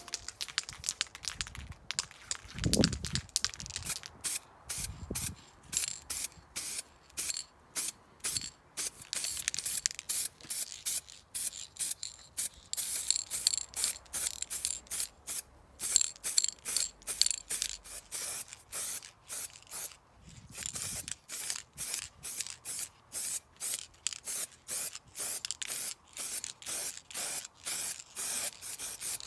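Aerosol spray-paint can going off in many short hisses in quick succession, about three a second, as cast-iron parts are painted. A couple of dull knocks come in the first few seconds.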